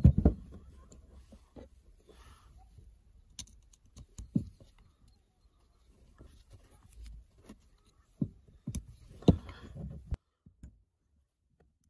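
A screwdriver tip scraping and clicking in the rusty threaded screw holes of an old vise jaw, with the metal parts knocking as they are handled: irregular small taps and scrapes, with a few sharper knocks near the end, stopping abruptly about ten seconds in.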